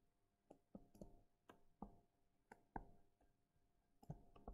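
Faint, irregular clicks and taps, about a dozen of them, from handwriting strokes being drawn on screen with a pen or mouse.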